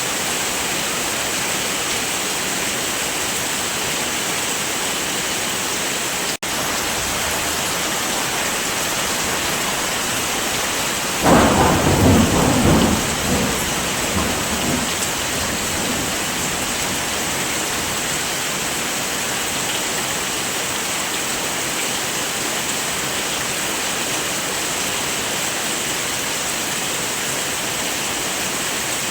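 Steady heavy rain with a single thunderclap about eleven seconds in that rumbles and fades away over a few seconds. The rain sound cuts out for a split second about six seconds in.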